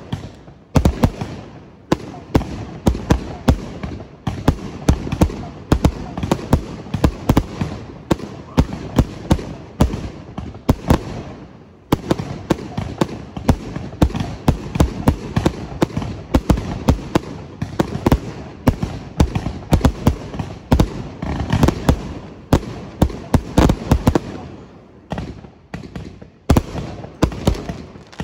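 Fireworks display: a dense barrage of bursts going off several times a second, with brief lulls about twelve seconds in and again near the end.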